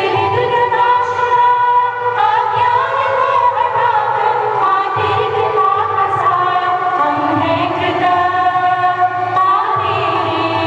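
A choir singing, with long held notes and smooth changes of pitch over a steady low accompaniment.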